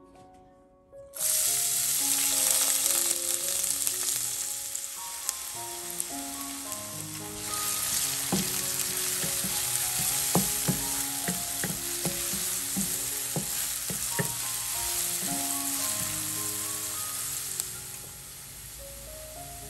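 Chopped onion sizzling in hot olive oil in a nonstick pan. The sizzle starts suddenly about a second in, and a wooden spatula knocks and scrapes against the pan as it stirs in the middle. The sizzle drops away near the end.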